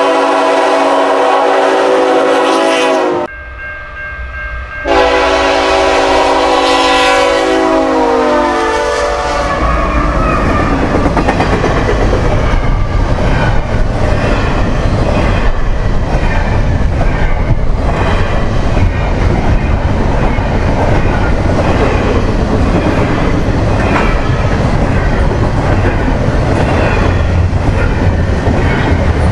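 Horn of a CN ET44AC locomotive leading a double-stack train at track speed: two long blasts, the second dropping in pitch as the locomotive passes. The steady rumble and clatter of double-stack container cars rolling by follows, with the wheels clicking over the rail joints.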